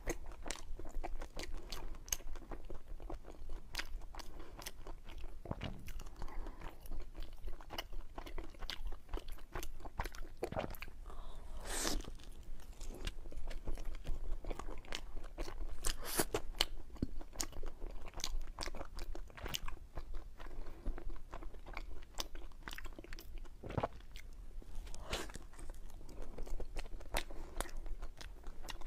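Close-miked chewing and biting of a soft cream-filled mochi cake: a steady run of small mouth clicks and smacks, with a few sharper clicks scattered through.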